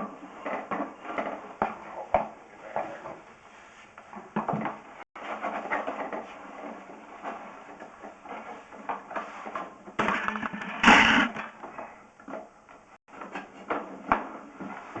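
Sewer inspection camera being drawn slowly back through the line on its push cable: irregular clicks, knocks and scraping rattles, with a louder scraping rush about eleven seconds in.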